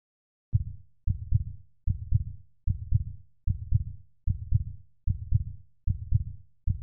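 Heartbeat sound effect: deep, low double thumps (lub-dub) repeating evenly at about 75 beats a minute, starting about half a second in.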